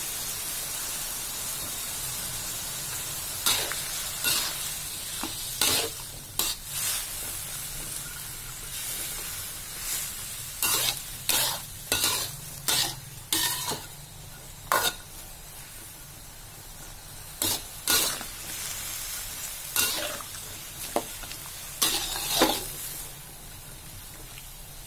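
Long beans being stir-fried in a metal wok: a steady sizzle, with a metal spatula scraping and knocking against the pan in irregular strokes from a few seconds in until near the end.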